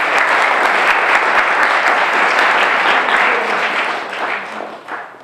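Audience applauding: dense clapping from many hands that holds steady, then thins out and fades away over the last second or two.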